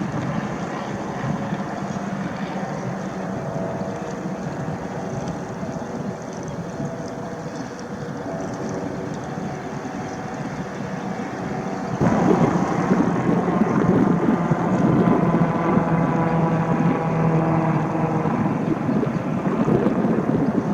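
Wind noise on the microphone over a steady mechanical drone made of several held tones. The drone steps up louder a little past halfway through.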